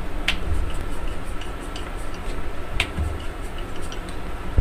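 Hands pressing and patting a ball of dough flat on a wooden board: soft low thumps and scattered light ticks, with two sharper clicks, one just after the start and one nearly three seconds in.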